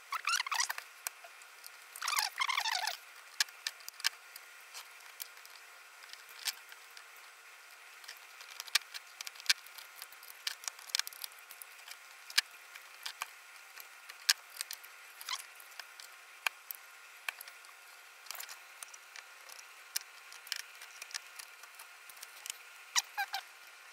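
Small clicks, scrapes and rattles of a precision screwdriver and hands working on a camcorder's CCD block: scattered single ticks throughout, with two short rattling clusters in the first three seconds and another brief one near the end.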